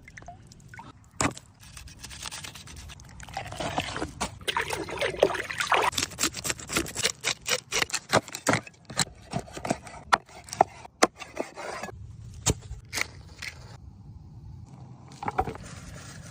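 Scraping with many sharp clicks and knocks, busiest through the middle and sparser near the end.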